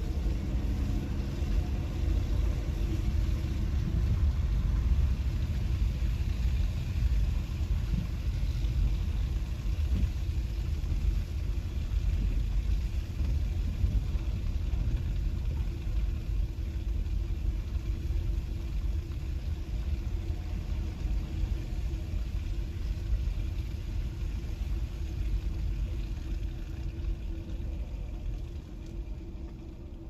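Car interior driving noise: a steady low engine and tyre rumble on a slushy, snow-covered street, heard from inside the cabin. It eases off near the end as the car slows.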